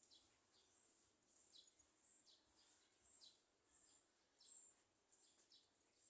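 Near silence, with faint short high chirps repeating irregularly about once or twice a second.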